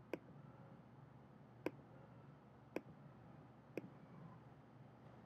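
Four sharp, single computer mouse clicks, roughly a second apart, over a faint steady low hum.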